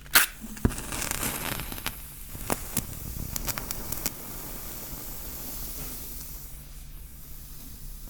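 A wooden match struck on a matchbox, a sharp scrape just after the start, then the flame hissing with a few faint crackles that die down after about four seconds.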